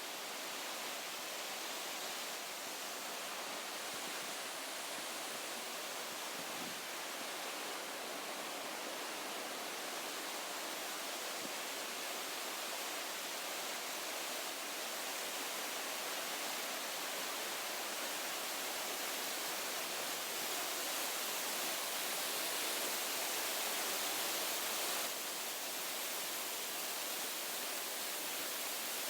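Waterfall rushing loudly as a dense, unbroken wash of water noise, dipping slightly in level near the end.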